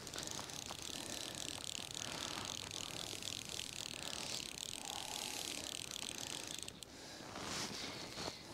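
Fly reel's click-and-pawl ratchet as line is wound in, a fast, even run of clicks that stops abruptly about seven seconds in.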